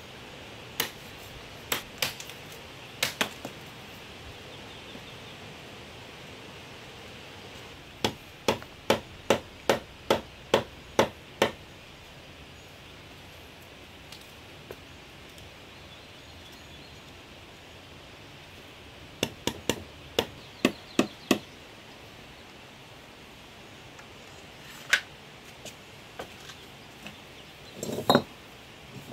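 Knife blade chopping at a bamboo pole: sharp, hard strikes in bursts, a run of about eight at roughly two a second, then another run of about seven, over a steady outdoor hiss. A duller knock comes near the end.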